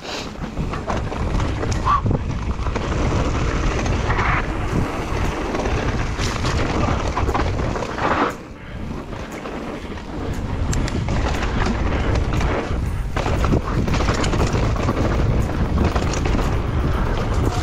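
Mountain bike descending a rough trail at speed: wind buffeting the microphone over the rumble of tyres on rocky dirt, with frequent knocks and rattles from the bike. Brief lull about eight seconds in.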